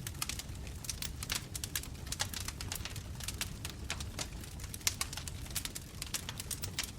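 Wood bonfire crackling: irregular sharp pops and snaps over a low steady rumble of the flames, with one louder pop about five seconds in.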